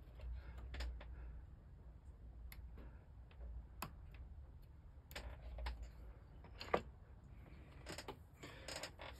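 Irregular light clicks and short scrapes of a small hand tool working on thin wood veneer and plywood on a model ship's bulkhead, with one sharper click about two-thirds of the way through.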